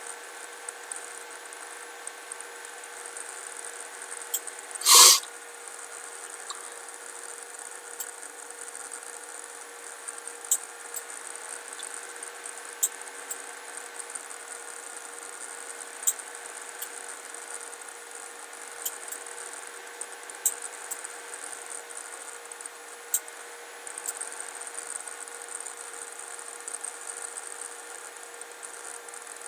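Steady background hum and high hiss with faint clicks scattered through, and one brief loud sound about five seconds in.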